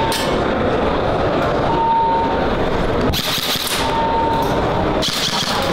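Airsoft electric guns firing short bursts, heard as brief hissing rattles about three seconds in and near the end, over the constant din of a crowded exhibition hall.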